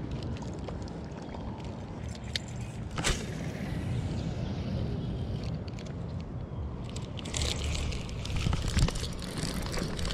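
Muffled rubbing and handling noise on a chest-mounted action camera while a spinning reel is worked, with scattered knocks and one sharp knock about three seconds in. From about seven seconds on, a rushing hiss joins in.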